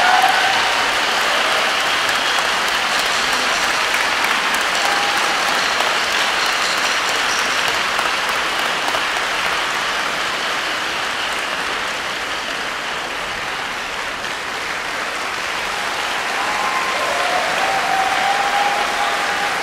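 Large audience applauding steadily, easing a little partway through and swelling again near the end.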